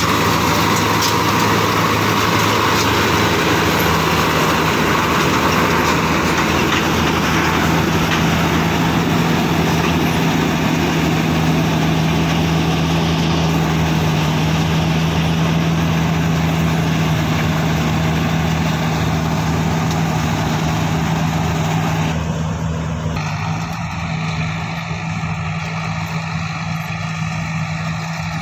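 Mahindra Balkar combine harvester running steadily while harvesting paddy, a loud continuous machine drone with a strong low hum. About 22 seconds in the sound drops and becomes thinner and more distant.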